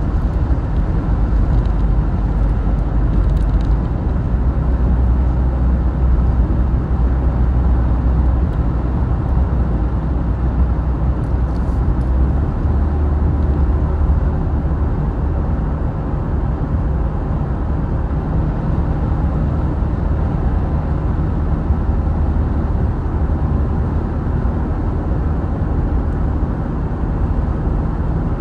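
Steady low rumble of a vehicle driving at speed: engine and road noise running evenly, with no change in pace.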